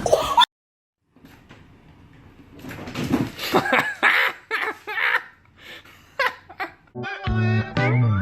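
Short bursts of laughter, then music with a steady bass line starting about seven seconds in.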